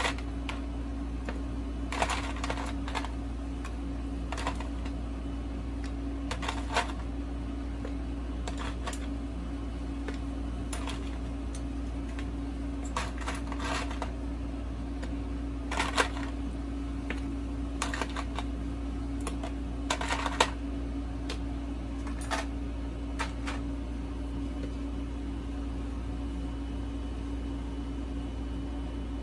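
Ice cubes cracking and clinking in a glass of cold milk: scattered short clicks and ticks, a few louder ones, over a steady low hum.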